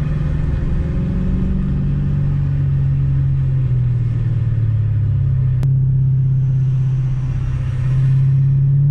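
Infiniti Q45's 4.5-litre V8 running through freshly fitted shorty headers with no exhaust leaks, heard from inside the cabin with the rear windows cracked. The steady exhaust note sinks as the car eases off. Near the end it rises and grows louder as the car accelerates again.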